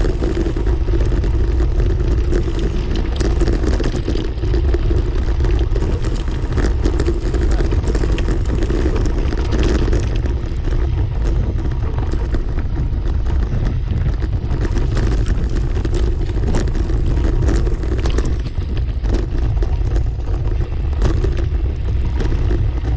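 Bicycle riding over a bumpy dirt trail at about 10 mph, giving a steady low rumble of tyres and wind on the microphone. Frequent sharp clicks and rattles come as the bike jolts over the rough ground.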